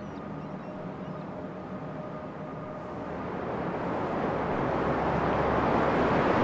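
A rushing, airy noise with faint held tones underneath, swelling steadily louder through the second half like a building whoosh.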